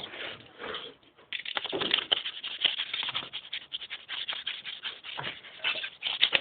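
Hand sanding with sandpaper: quick, scratchy back-and-forth strokes, several a second, growing busier about a second and a half in.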